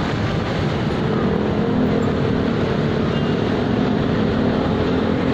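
Steady road traffic noise: motor vehicles running nearby, with an engine hum coming in about a second and a half in.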